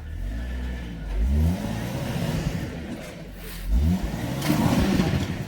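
Off-road vehicle's engine revving in short bursts, rising sharply in pitch twice.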